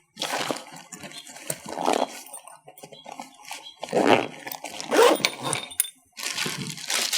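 Rustling and crinkling of packaging as unboxed accessories are handled, in irregular bursts with short pauses between them.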